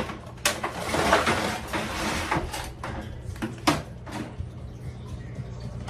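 Household handling noise: rustling with several sharp knocks and clatters as things are moved and set down, like a drawer or door being opened and closed.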